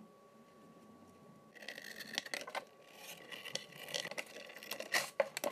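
A knife cutting through thick sole leather: a rough scraping sound with small clicks that starts about one and a half seconds in and keeps going in short strokes.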